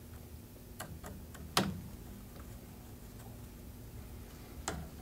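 A few sparse, sharp light clicks from a hand driver working the scope ring cap screws; the loudest comes about a second and a half in.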